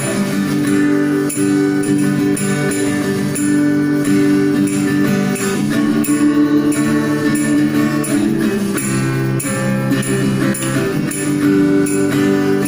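Instrumental music: sustained chords with a steady, high percussion beat.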